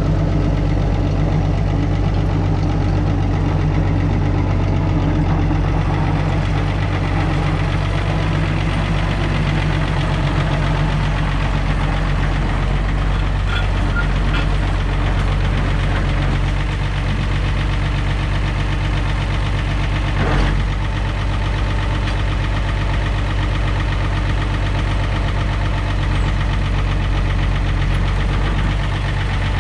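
International TD6 crawler dozer's diesel engine running steadily at a low, even pace, with one short knock about two-thirds of the way through.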